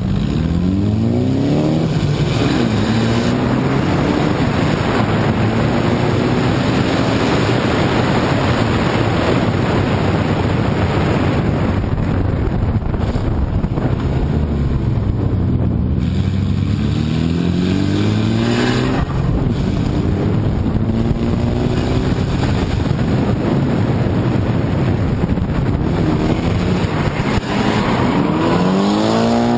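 Drift car's engine running hard at high revs, the pitch climbing several times as it is revved through a tandem drift, over a constant rush of tyre and wind noise picked up by a bonnet-mounted camera.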